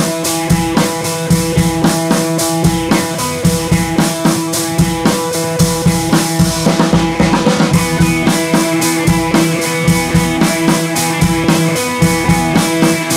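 Background music with a steady drum beat under held notes.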